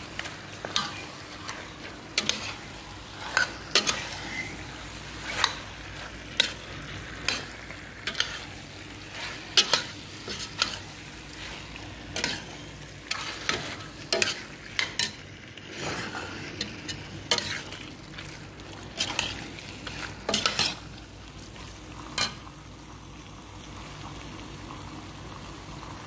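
Metal spoon scraping and clinking against a stainless steel pot as chicken in tomato paste is stirred, over a steady sizzle of frying. The clinks come irregularly, about once a second, and stop about four seconds before the end.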